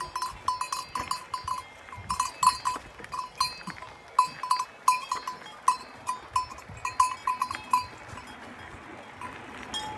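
Cowbell on a young cow clanking irregularly as the animal moves, several strikes a second, stopping about eight seconds in.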